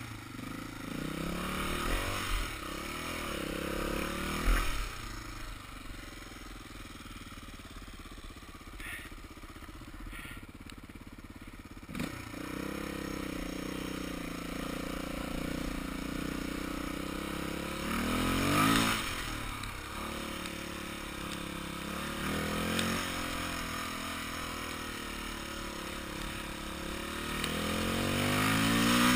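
Dirt bike engine under way on a dirt trail, revving up and easing off several times as the rider works the throttle, getting louder near the end.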